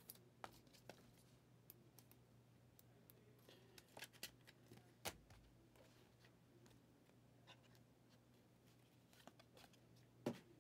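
Near silence broken by faint, scattered clicks and scrapes of trading cards being handled and set down, with one louder click near the end.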